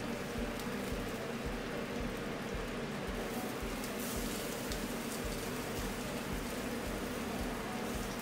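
Sliced onions sizzling in hot coconut oil in a cast-iron skillet as they are dropped into the pan by hand, a steady frying hiss.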